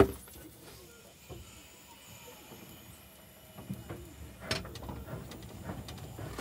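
Metal knocks and clanks from the fittings in a narrow-gauge steam locomotive's cab: one sharp knock at the start, a quiet stretch, then scattered knocks and clicks in the last few seconds.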